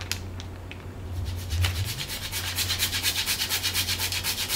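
Whole nutmeg grated on a fine rasp grater: quick, even scraping strokes, about five a second, that start about a second in after a few light clicks.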